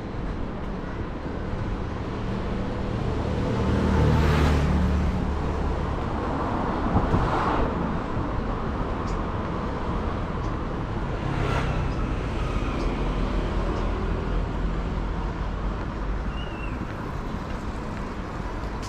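City road traffic: a steady hum of vehicles, with single vehicles driving past close by about four, seven and eleven seconds in, the first of them the loudest.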